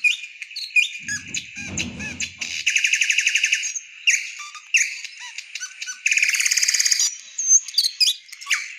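Bird chirps and fast repeated trills played back through a feature phone's small speaker, with the longest trill runs about three and six seconds in.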